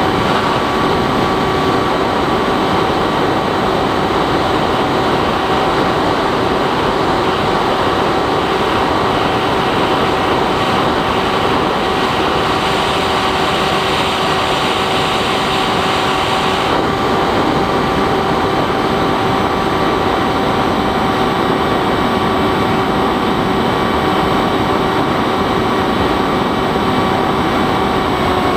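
Bixler 3 model plane's electric motor and propeller running at a steady throttle in flight: a constant whine over wind rush. A brighter hiss comes in for about four seconds around the middle.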